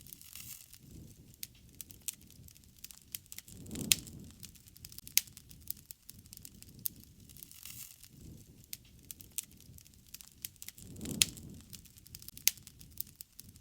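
Wood campfire burning, crackling with many sharp pops and snaps, one louder pop about four seconds in. Twice a deeper rush swells up under the crackle, near four and eleven seconds in.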